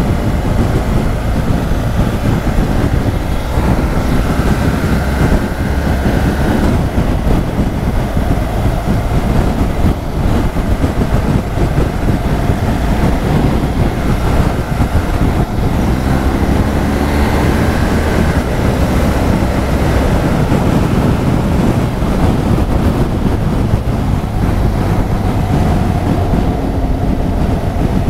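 Heavy wind rush on the microphone over the running liquid-cooled boxer twin of a 2016 BMW R1200 GS Adventure at road speed. The engine note climbs a couple of times as the bike accelerates, about four seconds in and again around the middle.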